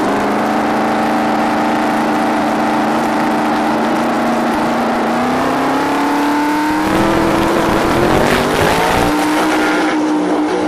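Fox-body Mustang drag car's engine running at the start line, its pitch creeping up as revs build for the launch. About seven or eight seconds in it launches at full throttle and pulls away down the strip on a 7-second pass.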